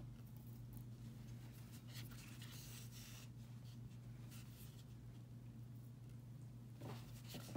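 Faint scratching and rustling of a needle and thread being pushed and drawn through the tightly wound yarn of a temari ball, over a steady low hum.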